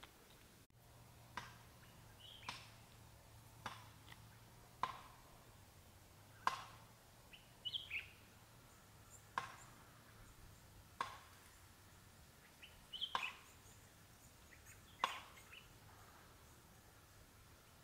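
Birds calling: a sharp, clicking call repeated at uneven intervals of one to two seconds, with short high chirps in between.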